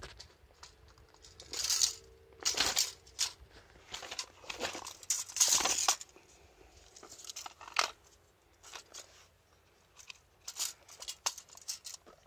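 Irregular bursts of rustling and scraping as a landing net holding a large fish is handled on concrete, the fish shifting in the mesh. The bursts are short and uneven, the loudest about two and five to six seconds in.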